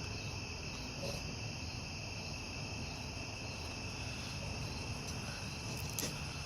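Crickets chirping steadily at night: a constant high trill that runs without a break, over a low hum. A single sharp click comes near the end.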